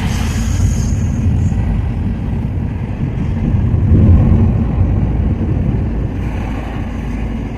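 Car driving slowly on a town street, heard from inside the cabin: a steady low rumble of engine and tyres that swells a little about four seconds in.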